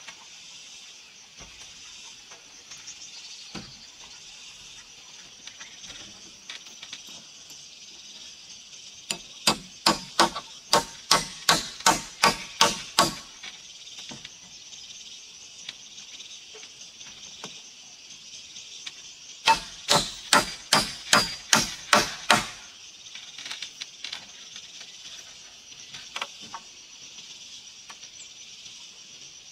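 Hammer driving nails into wooden roof rafters: a run of about a dozen quick blows, then after a pause another run of about nine, over a steady high-pitched background drone.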